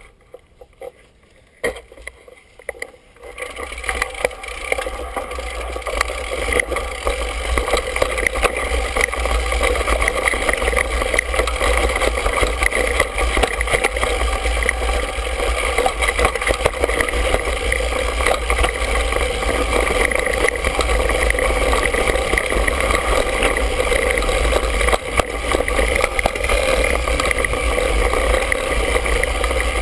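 Mountain bike riding over a dirt singletrack, picked up by a handlebar-mounted GoPro: a steady rumble of tyres on rough ground with constant small rattles and knocks. It starts quiet and builds up over the first few seconds.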